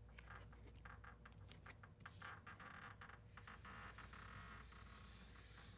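Faint crinkling and crackling of Blueskin butyl flashing membrane as hands press and smooth it onto the wall, with a soft brushing hiss in the second half.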